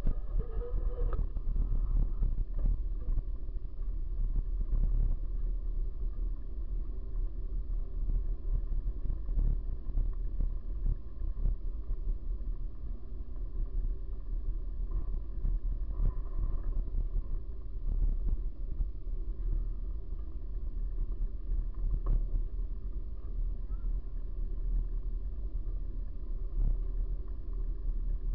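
Bicycle riding over a rough, wet street, heard from a camera mounted on the bike: a steady low rumble of road and wind noise with frequent small knocks and rattles.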